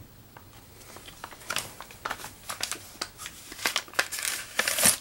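Beyblade toy packaging being opened by hand: irregular crackles and rustles of plastic, sparse at first and busiest and loudest near the end.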